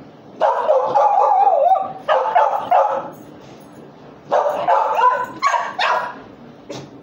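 A dog vocalizing in two bouts of wavering, high-pitched whines broken up by yelping barks; the first begins about half a second in and runs over two seconds, the second follows after a pause of more than a second.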